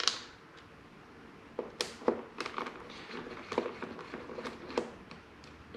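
Irregular light clicks and knocks of hand tools and small metal parts being handled while dismantling a motorcycle.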